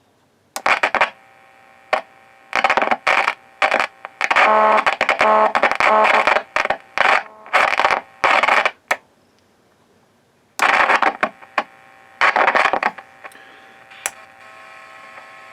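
Marconi model 2004 seven-transistor radio, built by Toshiba, playing through its speaker as loud static and buzzing that cut in and out abruptly, with a quiet gap in the middle. About thirteen seconds in it settles into a steady hum and hiss. The crackling fits a scratchy volume pot, over a band swamped with interference.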